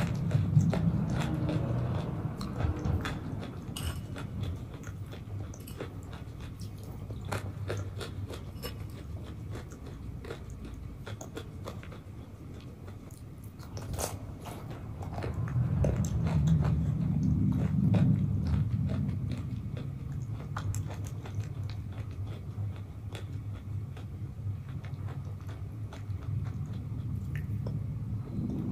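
Close-up eating sounds: a mouthful of thick, creamy food chewed and swallowed off a spoon, with many small wet mouth clicks. The chewing swells near the start and again about halfway through.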